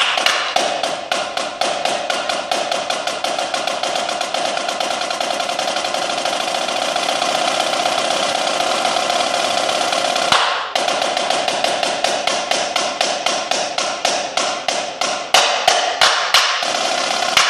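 Marching snare drum played with sticks: a fast, unbroken roll for about ten seconds with a ringing head tone, a brief break, then quick strokes that open out into separate accented hits near the end.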